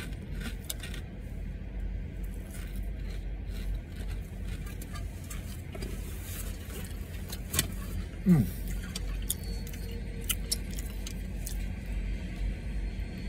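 Plastic potato-chip bag crinkling and rustling in hand, with scattered small crackles of Ruffles chips being chewed, over a steady low hum of the car.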